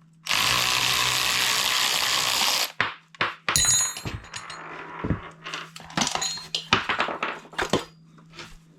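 A hand-held power tool runs steadily for about two seconds, spinning out an exhaust bolt that has just broken loose, followed by a series of sharp metallic clicks and clinks as tools and parts are handled.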